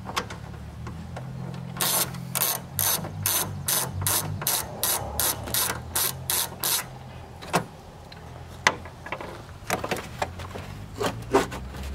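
Hand socket ratchet clicking in a quick, even run of about a dozen strokes, some two or three a second, as a 10 mm bolt is backed out; after that come a few scattered separate clicks and taps of the tool.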